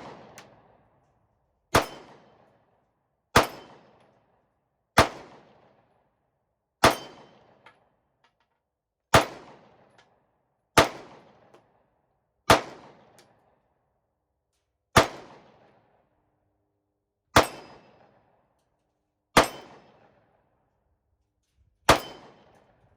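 Springfield Hellcat 9mm compact pistol fired in slow, aimed single shots: eleven sharp reports about one and a half to two and a half seconds apart, each trailing off in a short echo.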